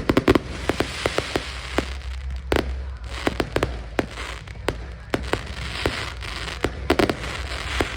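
Aerial fireworks bursting: many sharp bangs and crackles in quick succession, some in rapid clusters, over a steady low rumble.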